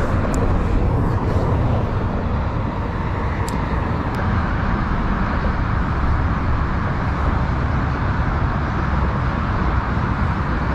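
Wind buffeting the camera's microphone: a steady, loud, low rumbling noise, with a few faint ticks in the first four seconds.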